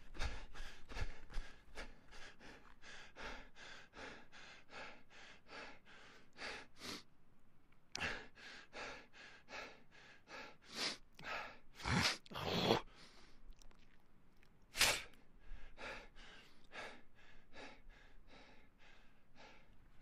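A person panting hard after running, quick breaths about three a second. About seven seconds in there is a short pause, then a few louder, deeper gasps, and the quick, lighter panting comes back.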